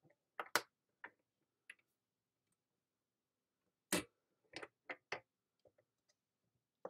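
Hard plastic clicks and clacks from a stamp platform being worked: a few light clicks, then a sharp clack about four seconds in as the hinged acrylic lid is pressed shut onto the base, followed by a quick run of smaller clicks as the lid and turning template are handled.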